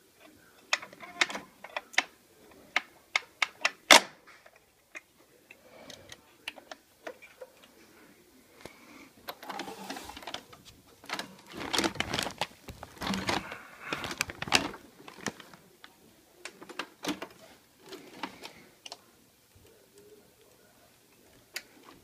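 Handling noise from a Hoover Convertible 589 upright vacuum: irregular sharp clicks and knocks, then a longer stretch of clattering and rustling around the middle as the machine is moved and stood upright. The motor is not running.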